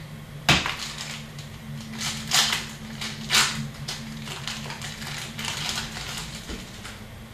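Trading cards and packaging being handled: a sharp click about half a second in, then a run of quick paper-and-foil swishes and crinkles as cards are slid through by hand, over a steady low hum.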